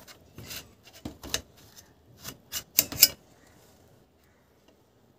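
Kitchen knife cutting a peeled eggplant into thin lengthwise strips on a stainless steel plate, the blade ticking against the metal in a string of sharp clicks over the first three seconds.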